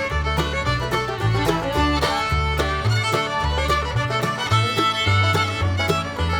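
Background music: upbeat instrumental with fiddle over a steady bass line and beat, in a bluegrass-country style.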